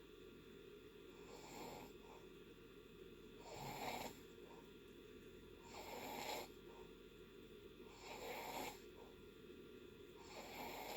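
A person in deep sleep snoring faintly and regularly, five snores about two seconds apart.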